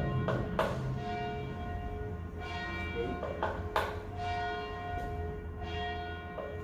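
Church tower bell tolled repeatedly: sharp strokes every second or two, some coming in close pairs, each leaving a long ringing tone that carries into the next stroke.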